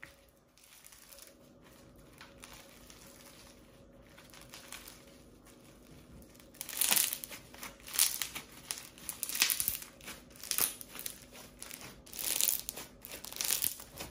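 Yellow foam-bead slime squeezed and kneaded in the hands, crackling and popping as the beads are pressed. Faint at first, then from about halfway a run of loud crackling squeezes about once a second.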